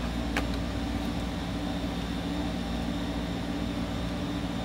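A steady mechanical hum holding several constant pitches over a light hiss, with a single light click about half a second in.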